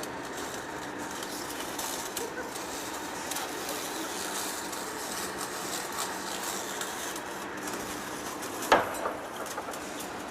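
Heavy-duty lathe running with a steady hum and hiss, and a sharp knock near the end, followed by a smaller one.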